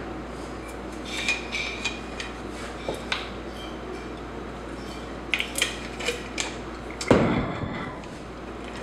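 Glassware and crockery clinking as things are handled in a kitchen cupboard: a scatter of light clinks and taps, some ringing briefly, then a louder thud about seven seconds in.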